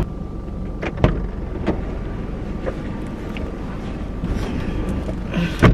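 A car running, heard as a steady low rumble, with a few light clicks in the first few seconds and one loud thump near the end.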